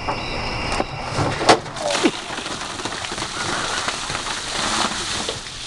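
A large bucket of ice water poured over a seated person, pouring and splashing heavily onto him and the deck. The splash starts about a second in and runs on, with one sharp knock about a second and a half in.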